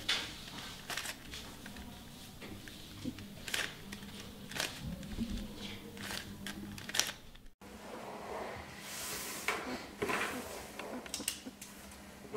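Plastic 3x3 Rubik's cube being twisted by hand: a run of sharp, irregular clicks and rattles as its layers turn. The sound cuts off abruptly a little past halfway, and after that only a few fainter scattered clicks follow.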